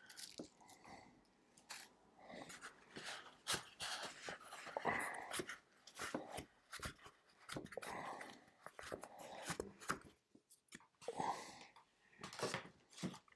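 Hands rummaging in a product box, rustling and crinkling the packaging with scattered light clicks and knocks, in irregular short bursts with a brief lull about ten seconds in.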